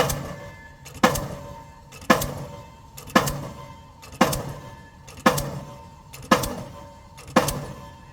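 Delmag D46-32 diesel pile hammer driving a 450 mm PHC concrete pile: a heavy blow about once a second, eight in all, each leaving a short metallic ring that dies away before the next.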